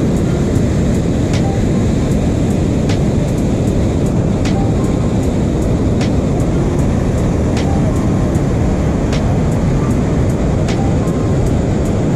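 Steady rushing of water pouring over a dam spillway into the river below. A faint sharp tick sounds about every second and a half.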